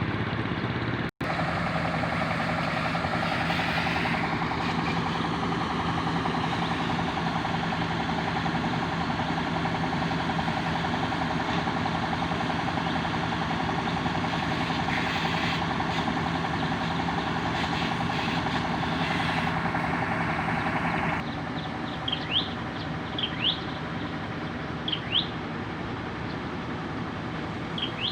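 Truck engine idling steadily. About three-quarters of the way through, the sound drops to a quieter, steady running, and short bird chirps are heard over it several times.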